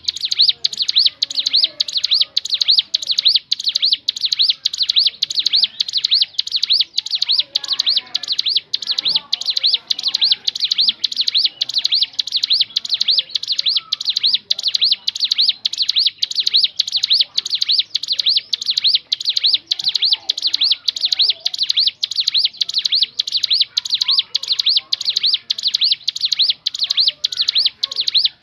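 Ciblek gunung, a prinia, singing a long, unbroken series of high chirping notes at an even pace of about three a second.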